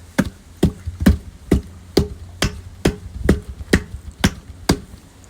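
Eleven evenly spaced sharp knocks, a little over two a second, each with a brief ring: the valve handle being tapped down into the filter valve lid.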